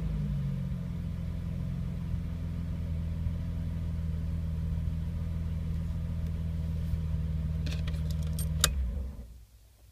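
BMW E30 325i's M20B25 straight-six idling steadily at about a thousand rpm. Near the end a brief jingle of keys and a click, then the engine is switched off and runs down to a stop.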